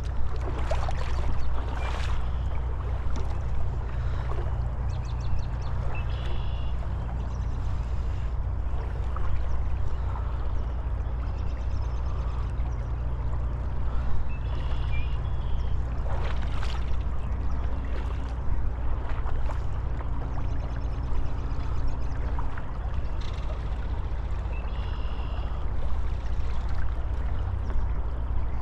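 Shallow river water running steadily over rocks, with a heavy low rumble of wind on the microphone. A few brief knocks, and a short high chirp that comes back three times, about every eight seconds.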